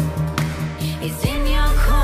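Background electronic music with a sung melody. The deep bass drops out for the first second or so, then comes back in with a falling sweep.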